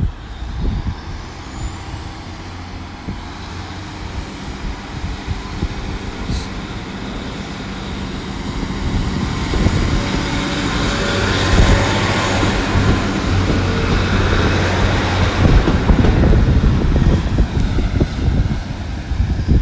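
British Rail Class 150 Sprinter diesel multiple unit pulling away under power, its diesel engines running with a steady low hum. It grows louder as the unit passes close by, loudest about two thirds of the way in, then fades as it draws away.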